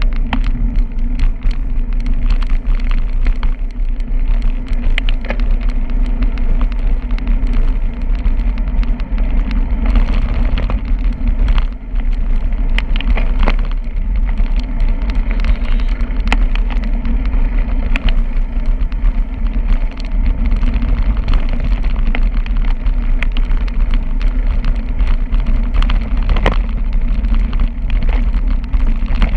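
Steady low rumble of wind buffeting a handlebar-mounted camera's microphone and tyre noise from a bicycle rolling along a paved street, with scattered small clicks and rattles from bumps.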